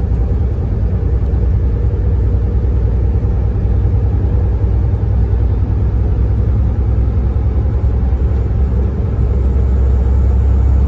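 Semi-truck cruising steadily: a low, even engine drone and road rumble heard from inside the cab.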